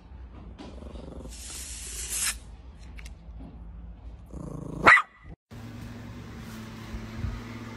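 Air hissing out of a balloon for about a second, then a Yorkshire terrier growls and gives one sharp bark about five seconds in.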